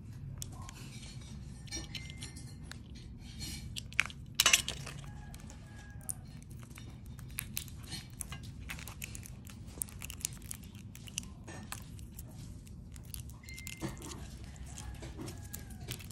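Hard objects being handled, making scattered clicks and clinks, with the loudest knocks about four and a half seconds in, over a steady low hum.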